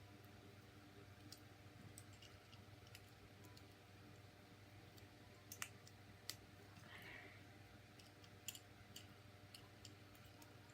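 Faint, scattered clicks of a plastic Transformers action figure's parts being moved and snapped into place during transformation, over a low steady hum.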